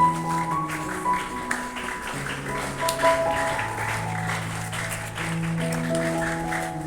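Instrumental background music of long held notes that step slowly from one pitch to the next, with light clapping underneath.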